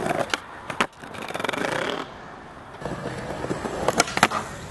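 Skateboard wheels rolling over brick and concrete with sharp clacks of the board hitting, two close together near the start and two more about four seconds in.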